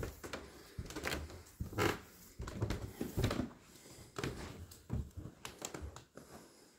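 Footsteps climbing a carpeted wooden staircase in a quiet room: a run of uneven soft thuds.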